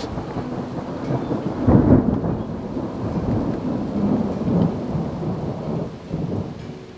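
Thunder rolling and rumbling over heavy rain falling on a campervan. The rumble swells loudest about two seconds in and eases off near the end.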